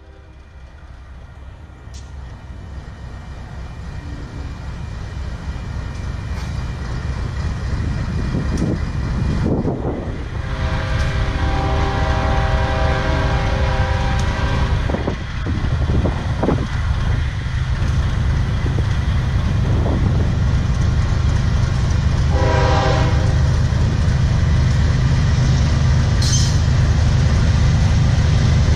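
An approaching Union Pacific freight train: the deep rumble of its diesel locomotives grows steadily louder, and the locomotive's air horn sounds a long blast about ten seconds in and a short one past twenty seconds, part of a grade-crossing horn sequence.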